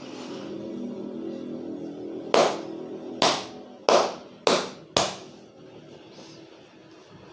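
Five loud hand slaps of a barber's head massage (champi), coming faster each time, about two a second by the end.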